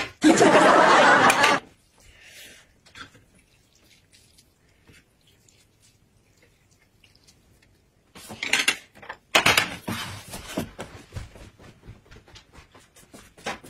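A loud, even rushing noise for about a second and a half at the start, then near quiet, then several seconds of tableware clatter: chopsticks and a plate knocking against a metal noodle bowl.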